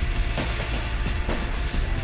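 Wind buffeting the microphone and water rushing along the hulls of a Weta sailing trimaran under way, with repeated soft slaps of small waves against the hull about twice a second.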